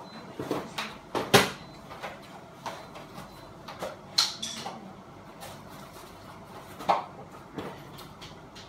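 Irregular knocks, clicks and clunks of objects being handled and set down, the loudest a little over a second in and again about seven seconds in.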